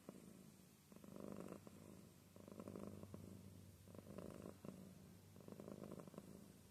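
Domestic cat purring softly and continuously while having its cheek scratched. The purr swells and eases with each breath, a louder phase about every second and a half.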